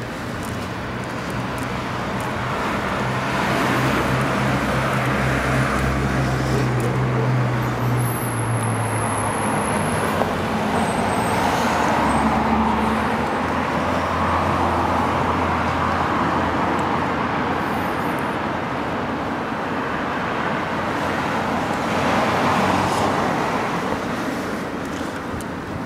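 City road traffic: cars driving past, their tyre and engine noise swelling and fading several times, with a low engine drone from a heavier vehicle underneath for stretches.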